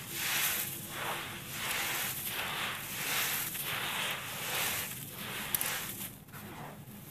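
Hands digging into a pile of dry, crumbly soil and grit, which crunches and rustles in repeated swells as handfuls are scooped up, squeezed and let fall back onto the heap. There is one sharp click about five and a half seconds in.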